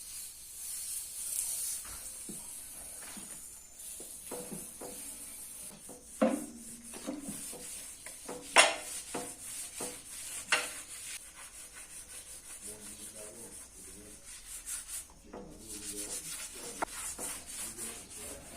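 Sanding or scrubbing on the old compressor's parts: a steady raspy rubbing. Several sharp knocks ring briefly, the loudest about halfway through.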